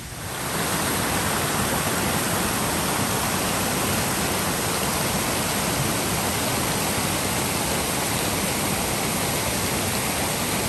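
A small waterfall pouring into a rocky pool makes a steady rush of falling water. It gets louder about half a second in.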